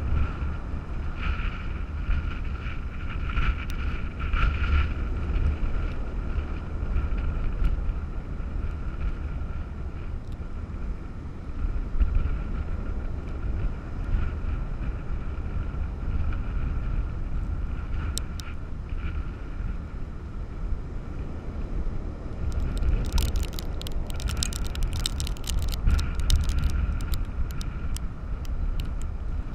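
Storm wind buffeting the microphone in loud, gusting rumbles over the wash of heavy surf, with a faint steady whistle through it. Near the end a dense run of crackling clicks cuts in.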